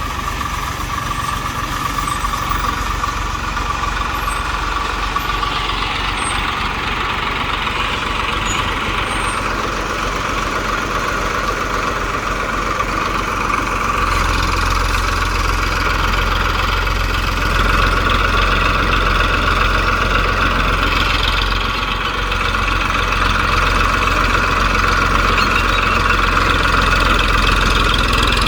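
Diesel engine of a TAFE tractor with a backhoe loader, running steadily. About halfway through it gets a little heavier and louder.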